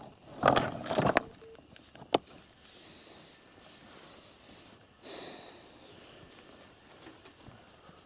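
A large stone pushed off a heap of dry stones, grinding and knocking against the rocks as it tumbles off, with a single sharp knock about two seconds in.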